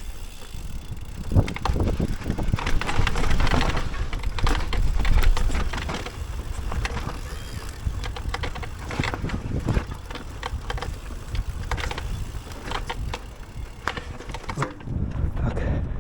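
Electric mountain bike rattling down a rough, muddy trail: many knocks and clatters from the bike over roots and stones over a constant low rumble, easing off about a second before the end.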